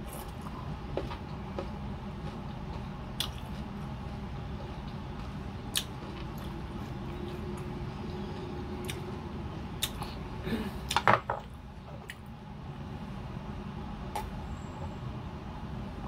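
Chewing and mouth sounds from eating mango slices: scattered wet clicks and smacks, with a short cluster of louder ones a little past the middle, over a steady low background hum.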